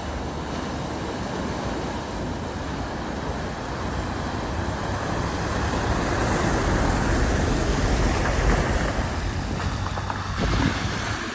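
A vehicle driving through the deep water of a ford, its engine rumbling under the hiss of displaced water. The sound builds to its loudest about eight seconds in, then eases off.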